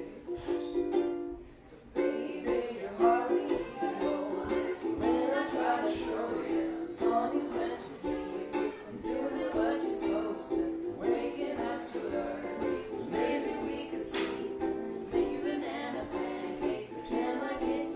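Acoustic guitar being strummed in chords. The playing dips briefly about a second in, then the strumming picks up again and carries on steadily.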